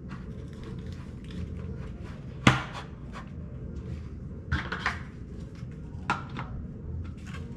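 Hard plastic toy pieces clacking as they are handled and fitted together: one sharp knock about two and a half seconds in, a quick cluster of clicks a couple of seconds later, and another click near the end.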